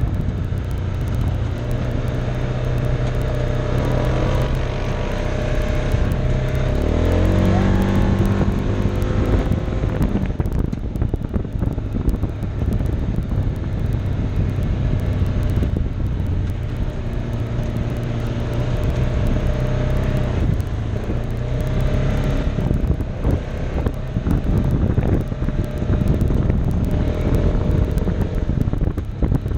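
Side-by-side UTV engine running steadily as the machine drives along a dirt track, over rumble and wind noise on the camera. About seven seconds in, the engine speeds up and its pitch rises, and it shifts pitch again later on.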